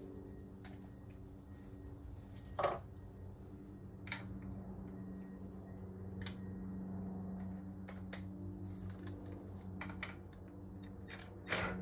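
Scattered light metallic clicks and clinks of a hand tool being worked on a small compressor, the loudest about two and a half seconds in, over a steady low hum.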